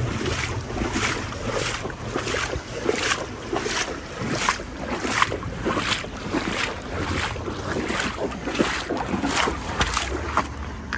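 Footsteps of a person walking at a steady pace, about one and a half steps a second, with wind buffeting the microphone.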